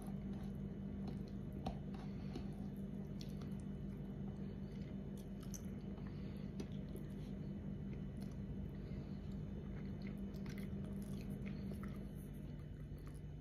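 Close-up chewing and mouth sounds of a person eating rice and fish with her hands, with small clicks from fingers picking at the food on the plate. A steady low hum runs underneath and drops slightly in pitch near the end.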